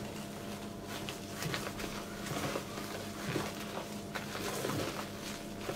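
Soft squelching and scraping of a silicone spatula folding whipped egg whites into sponge-cake batter in a glass bowl, over a steady low hum.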